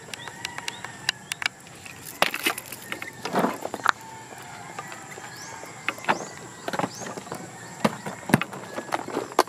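Riverside outdoor ambience: a steady high insect buzz and a few short, falling chirps, broken by irregular sharp clicks and knocks.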